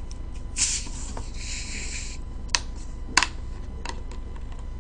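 Bottle of sparkling water being twisted open, the carbonation hissing out for about a second and a half. A few sharp clicks follow.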